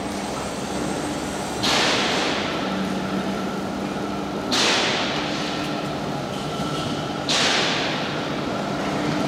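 Workshop machinery noise: a sharp hissing burst about every three seconds, each fading over about a second, over a steady low hum.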